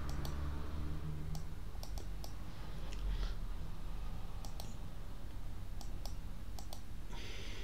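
Computer mouse clicking: about a dozen sharp, separate clicks, several in quick pairs, over a low steady hum.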